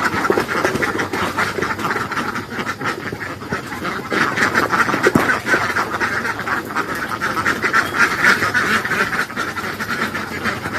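A flock of ducks quacking continuously, many calls overlapping without a break.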